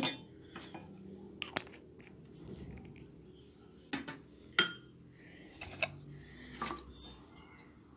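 A metal spoon clinking against a bowl several times, a few irregular sharp clinks over faint handling noise, as oils are spooned in and mixed.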